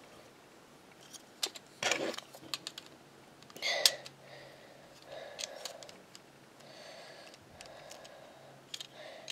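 Plastic Lego window pieces clicking and clattering in the hands as the clear panes are fitted into white window frames: a few sharp clicks, the loudest about two and four seconds in, with soft rustling between.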